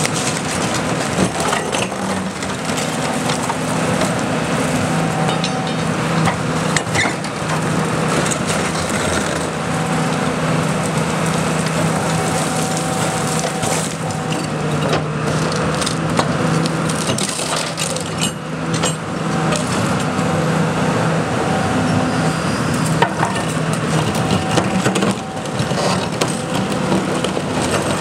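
Hitachi Zaxis 300 LCN excavator's diesel engine running under load while its hydraulic demolition shear crushes and tears through demolition debris, with constant crunching, splintering and sharp cracks.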